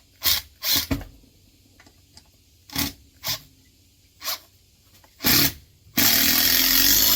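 A power drill/driver driving a wood screw into a board. There are several short trigger blips and bursts first, then one steady run of about a second and a half near the end as the screw goes home.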